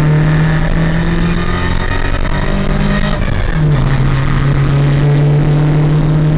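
Race-prepared car's engine heard loud from inside the cabin while driving. It holds a steady drone, climbs slightly in pitch about two seconds in, then drops to a lower steady note about three and a half seconds in.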